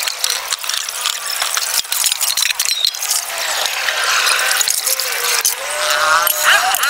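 Stainless steel pots and bowls clinking and scraping against each other as they are washed by hand, over running tap water splashing into a plastic tub. There are many sharp clinks and knocks throughout.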